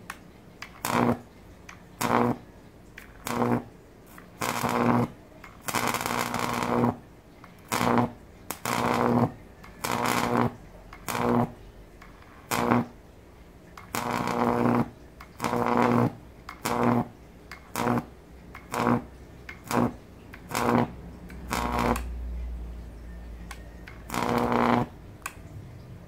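High-voltage arc from a microwave oven transformer jumping an air gap between two electrodes, switched on and off in about twenty short bursts roughly a second apart. Each burst is a harsh buzz with a steady mains hum in it, some cut off almost at once, others held for about a second.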